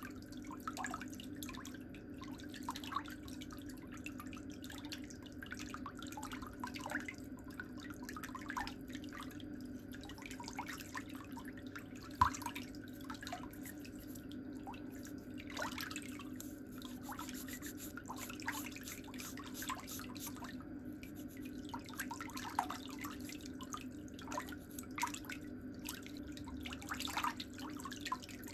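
Metal pedicure tools working a thick big toenail: small, irregular clicks and scrapes of the pick and nippers on the nail. There is one sharper click about twelve seconds in, over a steady low hum.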